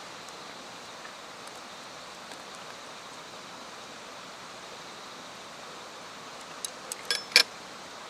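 Steady outdoor background hiss, then a quick run of light clicks near the end, ending in one sharp, louder clack: chopsticks being set down across a small stainless steel sauce dish.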